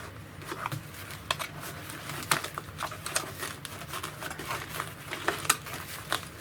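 Irregular small clicks and crinkling as a trim piece, its metal holding tabs bent up, is worked out of the vinyl-covered rear side interior panel of a 1966 Buick Wildcat.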